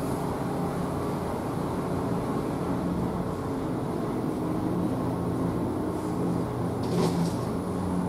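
W. S. Darley Champion outdoor warning siren coasting at low speed after its short alert test, giving a faint, uneven low hum under a steady outdoor rumble. A short hiss comes near the end.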